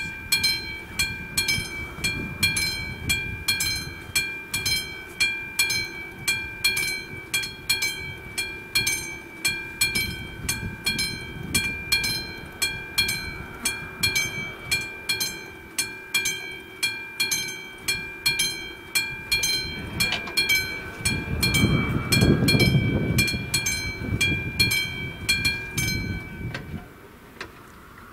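Classic level-crossing warning bell striking about twice a second, each ringing stroke running into the next, while the crossing warns and its barriers go down; the bell stops shortly before the end. A louder low rumble swells and fades about three quarters of the way through.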